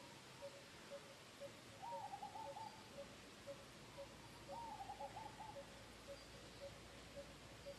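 Faint bird calls: one low note repeated evenly about twice a second, joined twice by a short, quick run of higher notes lasting under a second.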